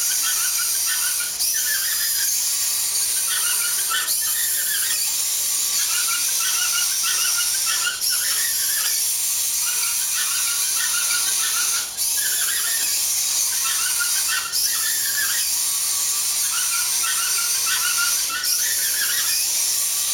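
Small wheeled robot's drive motors whining as it runs across a tabletop, a continuous high squealing whine. It breaks briefly with a click every two to four seconds.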